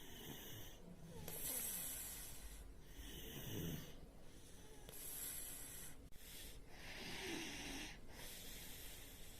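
A sleeping child snoring faintly, with a noisy breath about every two seconds. It is the kind of snoring and mouth breathing that the doctor puts down to enlarged adenoids (adenoid hypertrophy).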